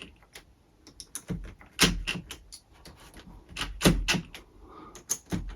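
Irregular clicks and knocks of hard objects being handled, with louder knocks about two seconds in, about four seconds in and near the end.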